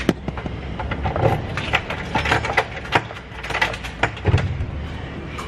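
Keys and a door being handled: a run of irregular clicks, knocks and rattles.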